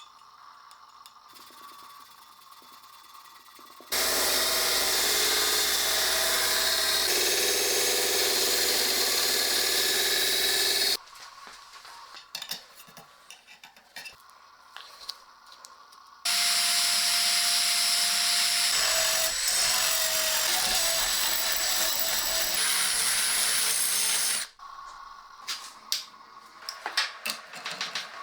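Power grinder running against the rusty steel of an old meat cleaver, cleaning off rust and regrinding the bevels. It runs in two long, steady stretches of about seven and eight seconds, with quieter handling clatter before, between and after.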